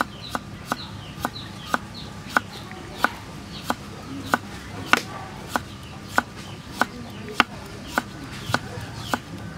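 Kitchen knife slicing a carrot on a wooden chopping block: a sharp knock of the blade through the carrot onto the wood at a steady pace, about three cuts every two seconds.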